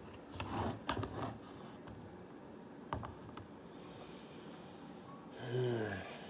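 A man's heavy breathing, with a few small clicks early on and a sharp click about three seconds in. Near the end comes a short, low voiced groan that falls in pitch.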